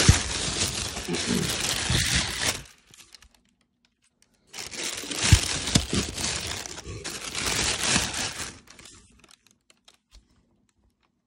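Plastic wrapping crinkling and rustling as it is handled and pulled inside a cardboard box, in two spells: one at the start lasting about two and a half seconds, and another from about four and a half seconds to eight and a half seconds, with a low thump near five seconds.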